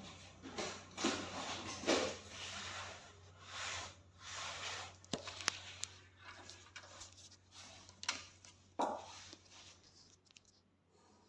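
Rustling and scraping handling noises with several sharp clicks, over a faint steady low hum; it grows quieter near the end.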